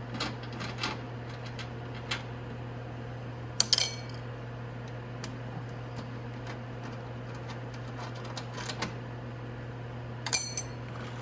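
Scattered metal clicks and clinks of an Allen key and small fairing bolts being worked loose and handled. A few sharper, ringing clinks come about four seconds in and again near the end, over a steady low hum.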